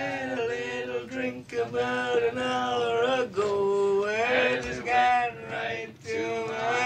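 A man singing long held notes with short breaks between them, with no clear words.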